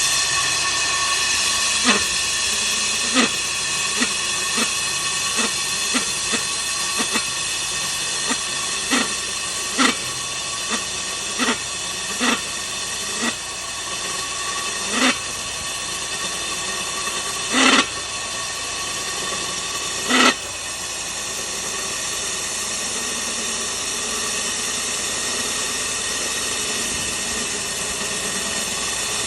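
Rig-mounted core drill motor running with a steady high whine and hiss. Sharp irregular clicks come about once a second for most of the first twenty seconds, then stop and leave the steady running sound.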